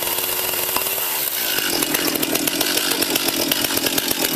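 Chainsaw engine running. About a second in its note shifts and it runs faster, with a dense rapid rattle.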